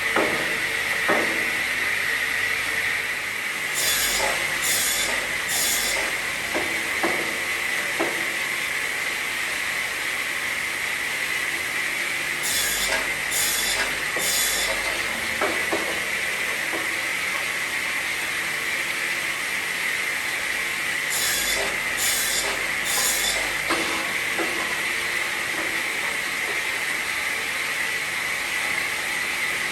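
Carousel pallet-block sawing machine running, with the steady whine of its circular saw blade. Three quick hissing bursts come together about every nine seconds as the blade cuts through the timber, with scattered wooden knocks between.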